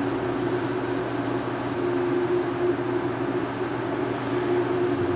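Steady machine hum: a constant low drone with a couple of steady hum tones over an even rushing noise, unchanging throughout.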